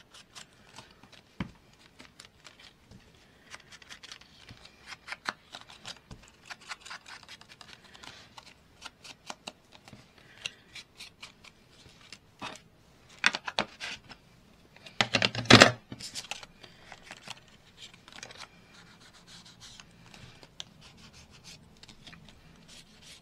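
Foam ink blending tool dabbed and rubbed over embossed cardstock, a long run of soft scratchy taps. A louder cluster of knocks and rustles comes about two-thirds of the way through.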